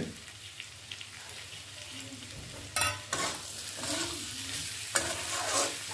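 Spatula stirring and scraping pumpkin, potato and green capsicum pieces through masala in a metal kadhai, over a steady sizzle of frying. A few louder scrapes of the spatula against the pan come about three and five seconds in.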